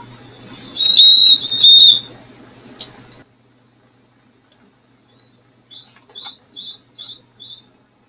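Small songbird calls: a loud burst of high whistled notes in the first two seconds, then a run of about six short high notes, roughly three a second, near the end.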